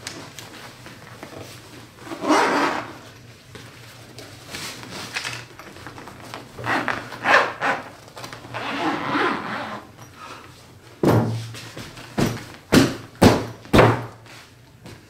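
Upholstery fabric rustling and scraping as a cushion cover is worked down over a new foam block. In the last four seconds come about five dull thumps as hands pat and press the stuffed cushion.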